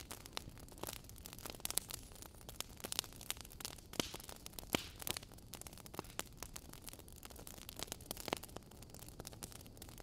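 Wood fire burning in a fireplace: logs crackling, with irregular sharp pops over a low steady hiss.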